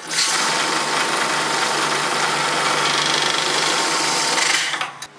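AccuBANKER AB8100 vacuum counter for banded bundles counting a strapped stack of banknotes: it starts suddenly into a steady, fast mechanical whirr of its motor and vacuum picker, then stops abruptly near the end.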